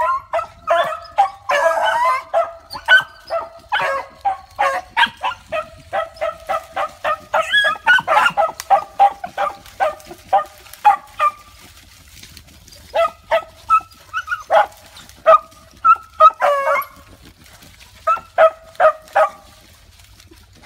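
A pack of beagles baying on a rabbit's trail: short, high yelps coming quickly, several dogs overlapping. The pack breaks off briefly about eleven seconds in, picks up again in shorter spells, and falls quiet near the end.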